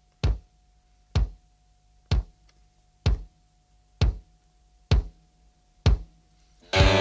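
Heavy rock song intro: slow, booming drum beats about once a second, then near the end a distorted electric guitar comes in with a chord that bends downward in pitch.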